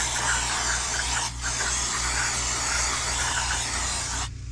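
Aerosol can of brake cleaner hissing as it sprays through its extension straw onto a truck's wheel hub, degreasing it. The spray breaks off briefly about a second in, then runs again and stops near the end.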